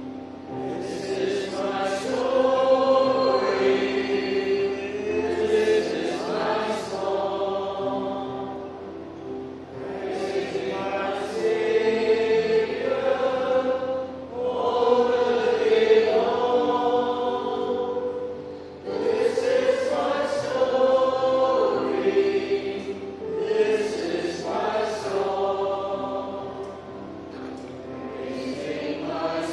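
A choir singing a hymn in long phrases with held notes, swelling and fading every few seconds.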